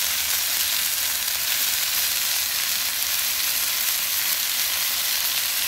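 Chuck eye steaks sizzling steadily as they sear on their second side on a hot ceramic-coated non-stick flat top griddle, an even hiss.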